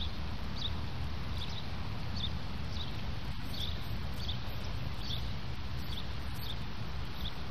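Steady low outdoor rumble with short, faint high-pitched chirps from a small animal, repeating roughly every half second to a second, often in pairs.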